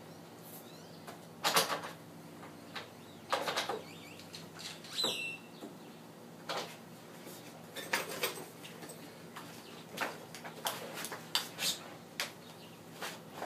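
Clamps and an aluminum saw-guide track being handled and tightened onto a wooden board: irregular clunks, rattles and scrapes, with a brief squeak about five seconds in.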